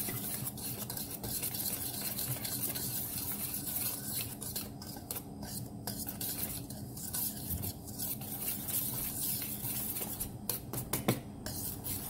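Wire whisk stirring a dry millet-flour mix in a stainless steel bowl: a continuous scratchy swishing with quick clicks of the wires against the metal. The dry ingredients are being blended and the lumps broken up.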